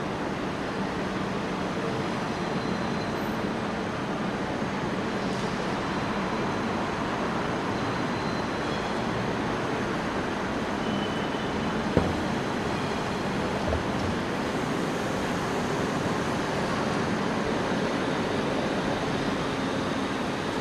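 Steady background noise of a railway station, a constant hum and hiss, with one sharp click about twelve seconds in.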